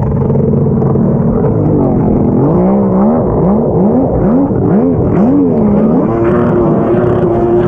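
Jet ski engine revving up and down in quick repeated swings, then holding steady at high revs from about six seconds in.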